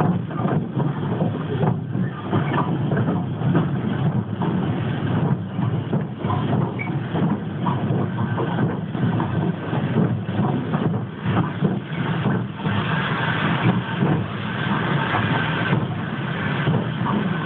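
A steam tank locomotive hauling a train, heard from close behind it: continuous running noise with irregular clattering knocks from the wheels and track. About 12 seconds in a louder hiss joins for a few seconds as the train comes into the station.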